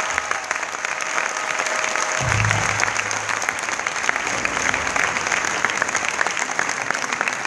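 Audience applauding, with held notes from the end of the music dying away in the first couple of seconds.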